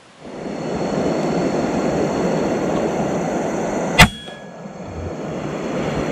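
A single sharp crack of an FX Impact PCP air rifle firing, about four seconds in, over a steady rushing noise.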